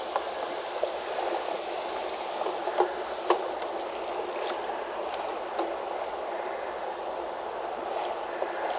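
Steady bubbling and trickling of water in a koi pond, with a couple of brief sharp sounds about three seconds in.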